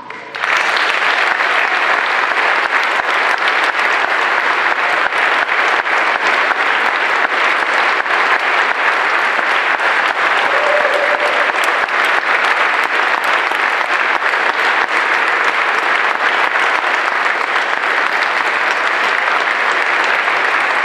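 Large audience applauding, starting abruptly about half a second in and holding steady throughout.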